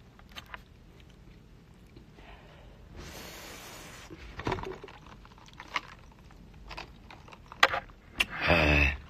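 Quiet eating noises from someone eating chicken wings: scattered small mouth clicks and lip smacks, a brief rustle about three seconds in, and a short hummed 'mm' near the end.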